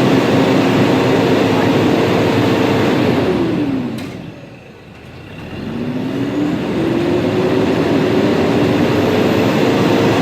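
Toyota Prado four-cylinder diesel engine revved and held at high revs. About three seconds in the revs drop away and the sound goes much quieter. Then the revs climb again and are held high.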